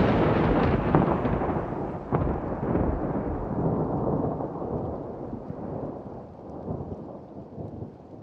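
Thunder: a long rolling rumble that slowly fades away, with a few sharper cracks in the first three seconds.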